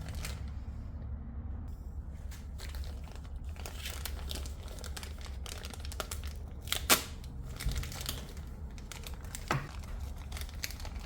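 Packaging being crinkled and torn open to unwrap a new drawer lock, with a sharper click about seven seconds in.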